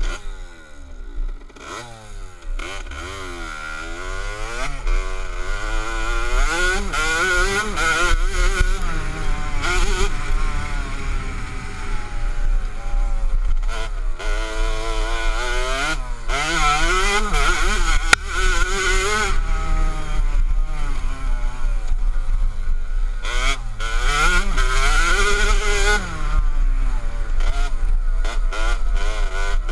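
KTM 65 SX's 65 cc two-stroke single-cylinder engine being ridden hard off-road, its pitch climbing and dropping again and again as the throttle is worked through the gears. It is quieter for the first couple of seconds, then runs loud.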